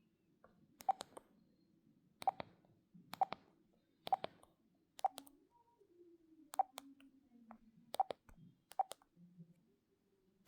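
Keys on a Huawei U1000S mobile phone's keypad being pressed, a short click or double click about once a second.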